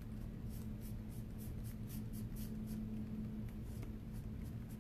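Paintbrush strokes on canvas, a soft scratchy brushing repeated about five times a second with a short pause past halfway, smoothing out brush marks and blobs in wet paint. A steady low hum runs underneath.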